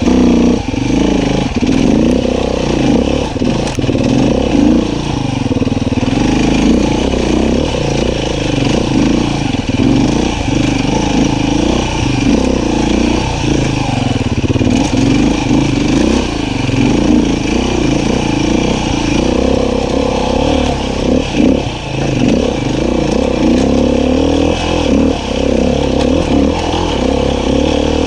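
Beta 500 RR-S single-cylinder four-stroke dirt bike engine running under load on trail, its revs rising and falling constantly with the throttle.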